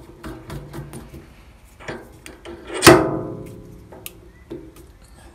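Drill chuck's taper arbor handled in a lathe tailstock quill: light metal clicks, then one loud ringing metallic clank about three seconds in that dies away over about a second.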